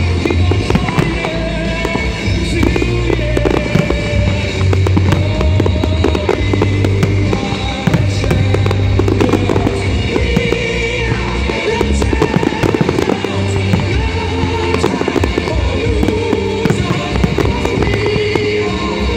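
Fireworks display: a dense, continuous run of shell bursts, bangs and crackles, with music playing along the whole time.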